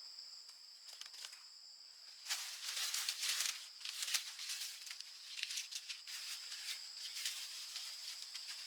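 Steady high-pitched insect chorus of crickets or cicadas. About two seconds in, louder bouts of crackling rustle start, like dry leaves or brush being handled, and ease off near the end.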